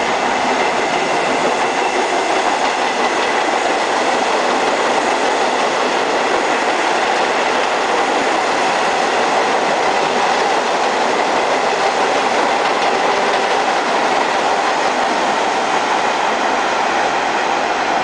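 R68 New York City subway train passing through on the express track without stopping: a steady, loud rush of steel wheels running on the rails.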